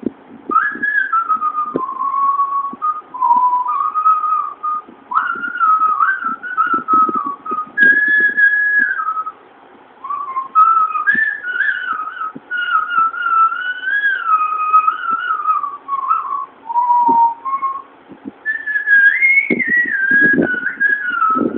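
A person whistling a melody by mouth: a single clear note that rises and falls in short phrases, with a brief pause about halfway through and a higher phrase near the end.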